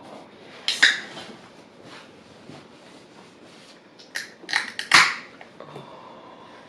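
Close-miked eating noises: two clusters of sharp noises, one about a second in and a longer run of several around four to five seconds in.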